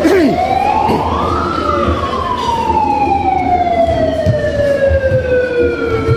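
A siren wails, rising in pitch for about a second and a half and then slowly falling away.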